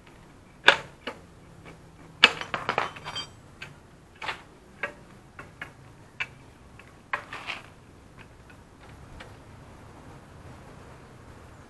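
Irregular metal clinks and clicks of hand tools and parts against a motorcycle's front wheel and fork, with a quick run of ringing clinks about two seconds in. They grow sparse and faint after about eight seconds.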